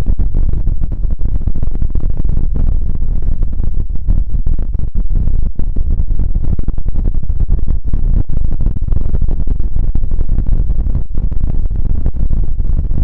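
Creepy sound effect: a loud, continuous low rumble that flutters rapidly in level.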